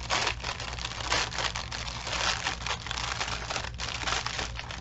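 Clear plastic bags of diamond painting drills crinkling continuously as hands squeeze and work through the bundle to pull one bag out.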